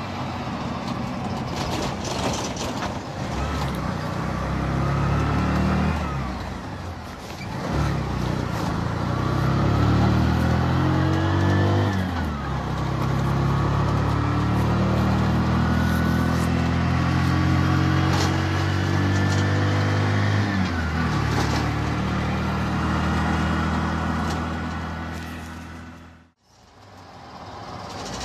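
Vehicle engine running, heard from inside the cabin, its pitch climbing and dropping back several times as it shifts through the gears. The sound cuts out briefly near the end.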